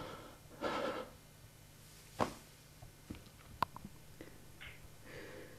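A woman's shaky crying breaths, then a few light clicks and taps of a mobile phone being handled as she raises it to her ear.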